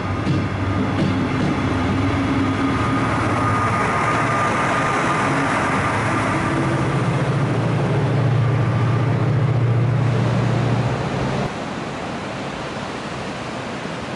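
Double-deck passenger train running past along a station platform: a steady rumble of wheels and running gear with a faint high whine in the first half, the low rumble strongest about two-thirds in. Near the end it cuts off abruptly to the quieter steady wash of sea surf.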